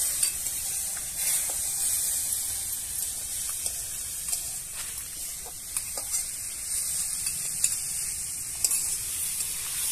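Potatoes and spice paste sizzling in hot oil in a wok, with a steady hiss and a metal spatula scraping and clicking against the pan as it stirs.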